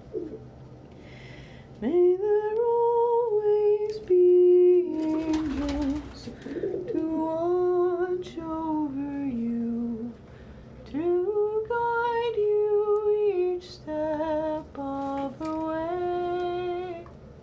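A woman humming a slow lullaby tune wordlessly, held notes stepping up and down, with a brief noisy rustle about five seconds in.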